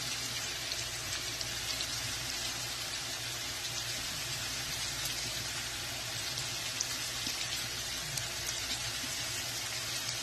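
Smoked sausage and onions sizzling steadily in a frying pan, with small scattered crackles.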